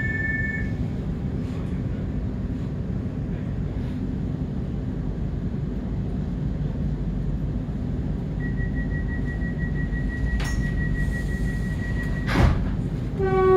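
Inside a stationary HCMT suburban electric train at a platform: the train's steady low hum. About eight seconds in, a rapid high beeping starts and runs for about four seconds, typical of the door-closing warning. It ends in a sharp thump as the doors shut, and a short pitched tone sounds at the very end.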